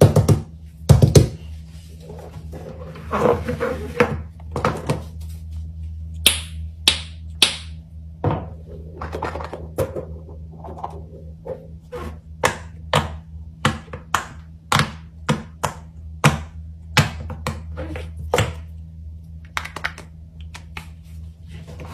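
Fidget toys being picked up and set down on a tabletop: a run of short thunks and taps, about one or two a second, with a few sharper, brighter clicks near the middle.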